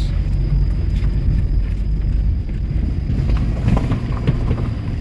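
Car rolling slowly over a gravel road, heard from inside the cabin: a steady low rumble of engine and tyres.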